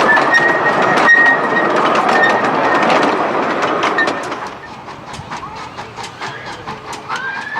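Miniature-railway steam train running: a loud rush of steam and running noise for the first few seconds, then quieter, evenly spaced clicks of wheels over rail joints. A steam whistle starts to sound near the end.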